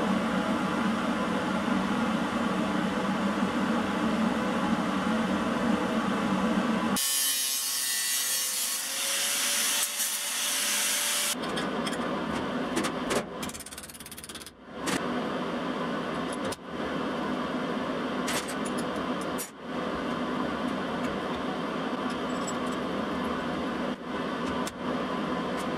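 Metalworking power-tool sounds in several short clips joined abruptly. A steady gritty run gives way about seven seconds in to a harsher, hissier stretch, then to another steady run about four seconds later, with brief breaks.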